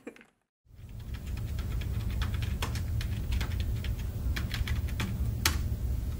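Computer keyboard typing: irregular key clicks over a steady low hum, starting after a brief silence, with one louder keystroke near the end.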